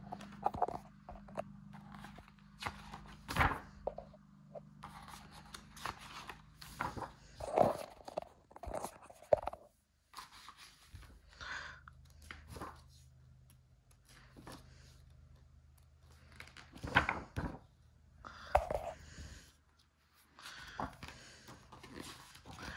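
Pages of a large art book being turned and handled: paper rustling and crinkling with soft knocks, at irregular intervals. A faint low steady hum runs underneath.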